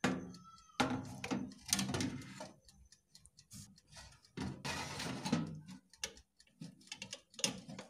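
Metal baking tray sliding into an electric oven and being set on its rack: a run of clicks, knocks and scrapes of metal on metal.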